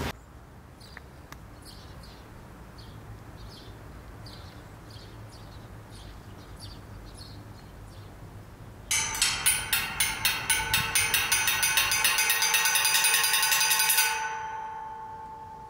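Faint high ticking over a quiet background, then about nine seconds in a sudden loud ringing, alarm-like, its strokes coming faster and faster over a steady tone, which stops abruptly about five seconds later and rings away.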